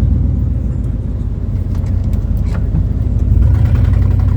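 Snow-plow truck engine running under load as the blade pushes snow up into a snowbank, a steady low drone that gets louder about three seconds in.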